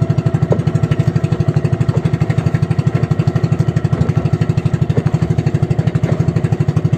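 A small engine running steadily at a fast, even pulse of about ten beats a second.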